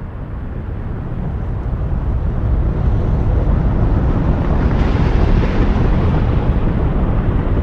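Meteorite fly-by sound effect: a deep, rushing rumble that builds in loudness over the first few seconds, with a brighter hiss swelling in about five seconds in as the meteor passes.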